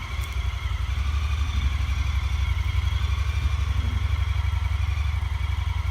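Honda Pioneer 1000 side-by-side's engine idling steadily, a low even running sound.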